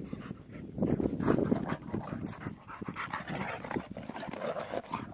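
Two dogs fighting, their rapid, rough vocal noises loudest about a second in and more broken up after.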